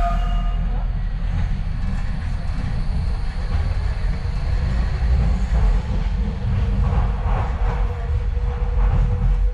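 Docklands Light Railway train running, heard from inside the carriage: a steady low rumble of wheels on the track, with a faint steady whine coming in about halfway.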